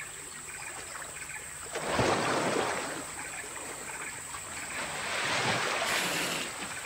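Asian elephant swimming through a river, water splashing and sloshing around it. The rushing swells up twice, about two seconds in and again around five seconds in.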